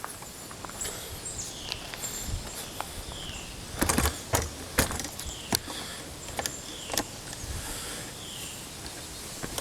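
Footsteps and scattered knocks and clicks as someone walks across a building site, with short falling chirps of a bird repeating faintly in the background.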